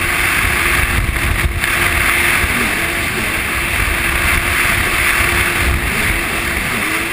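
Yamaha jet ski engine running steadily under way, mixed with a steady rush of wind and water against the hull. The engine note dips and rises slightly a couple of times.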